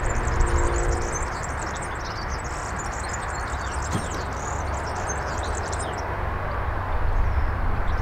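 Small birds chirping over a steady low rumble of wind on the microphone, with one light knock about four seconds in.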